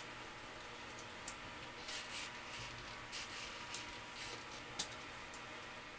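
Damp grout sponge wiping over porcelain tile and the metal edge trim in soft rubbing strokes, with a few light clicks and taps.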